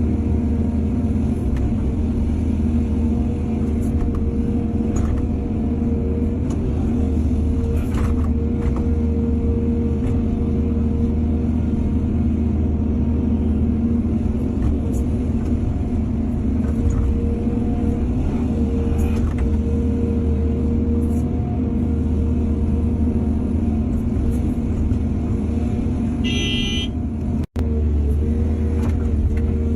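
Hydraulic excavator's diesel engine running steadily, with scattered short knocks and a brief horn-like toot near the end, followed by a momentary break in the sound.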